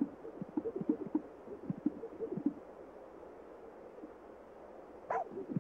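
Male sage grouse displaying on a lek: many short, low, soft pops and coos from their inflated air sacs, busiest in the first couple of seconds and fainter after, with one sharper, higher pop about five seconds in.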